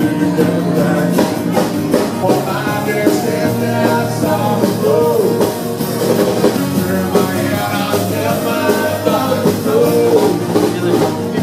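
Live rock and roll band playing with a singer and drums, heard loud in the room.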